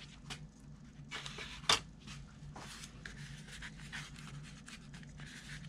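Soft rubbing and small clicks of a thin plastic airfoil template being slid and pressed into position on a paper plan, with one sharper click a little under two seconds in, over a low steady hum.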